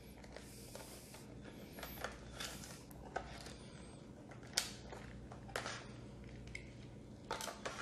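Clear plastic blister packaging crinkling and snapping as it is handled and opened: a short faint rustle about a second in, then a scatter of sharp plastic clicks, the loudest about four and a half seconds in and a few close together near the end.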